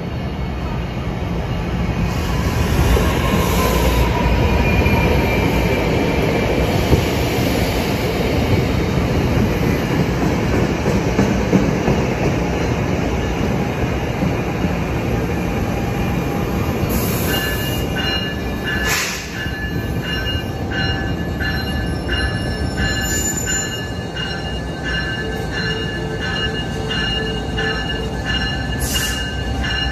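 NJ Transit commuter train running into the station and past on steel rails, a loud rumble with a falling wheel squeal early on. In the second half a locomotive bell rings steadily about once a second as a diesel-hauled train arrives.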